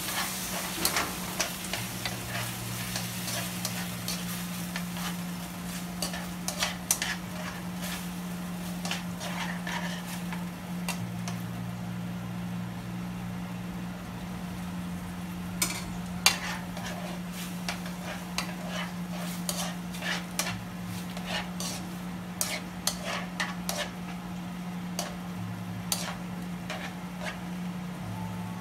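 Marinated beef slices sizzling in a frying pan while metal tongs stir and turn them, with frequent sharp clicks and scrapes of the tongs against the pan. A steady low hum runs underneath.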